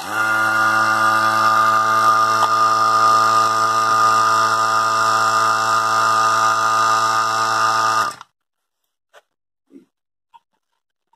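Electric rotary vacuum pump switched on and running steadily with an even motor hum, evacuating a repaired freezer's refrigeration circuit of nitrogen, air and moisture before the refrigerant charge. It stops abruptly about eight seconds in.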